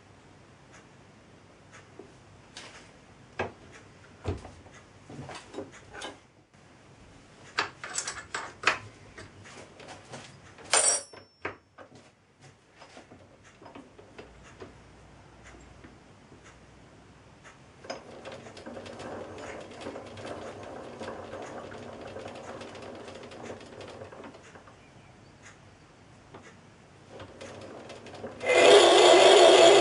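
Myford lathe worked by hand for screwcutting: scattered clicks and knocks as the crosslide and leadscrew controls are handled, then a steady geared whirr for about six seconds as the mandrel is turned by hand, driving the changewheels and leadscrew while the tool cuts a thread in a brass rod. Near the end a much louder steady machine running sound starts suddenly.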